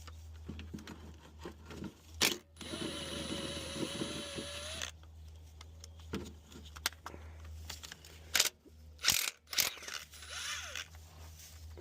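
Power tool (an impact gun) runs for about two seconds with a steady whine, loosening a bolt on the transmission oil pan, then cuts off suddenly. A few sharp clicks and knocks of tools on metal follow, over a steady low hum.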